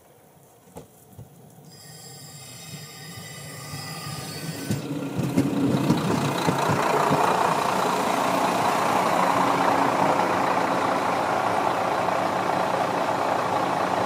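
JR Hokkaido KiHa 54 diesel railcar arriving at a station. It grows steadily louder as it approaches, with a thin high brake squeal for a few seconds, then gives a steady, loud engine and wheel noise as it runs alongside and draws to a halt.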